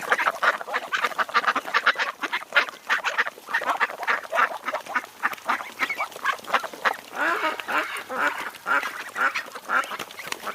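A flock of waterfowl calling all at once: a dense, unbroken chatter of short, rapid, overlapping calls, with a few lower, bending calls standing out from about seven seconds in.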